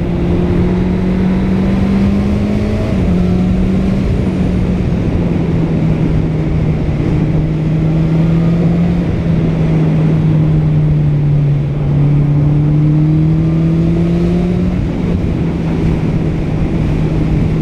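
Honda CBR650R's 649 cc inline-four engine running at steady mid revs under part throttle, heard from the rider's position with wind rushing over the microphone. The pitch eases down a little in small steps around three to four seconds in, sags about twelve seconds in, then rises again as the throttle opens.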